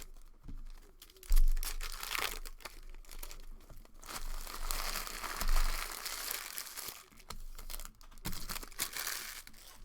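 Trading-card pack wrapper crinkling and tearing as packs are handled and opened, in irregular crackles with a longer run of crinkling in the middle and a couple of dull bumps.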